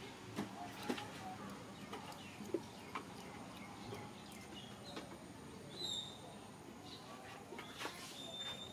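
Faint outdoor ambience with scattered light clicks and taps, and a few short high chirps, one about six seconds in and another near the end.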